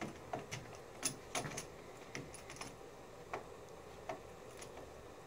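Scattered quiet clicks and knocks of a plastic faceplate with metal bus bars being pressed and seated onto the end of a Honda Civic Hybrid battery's cell stack.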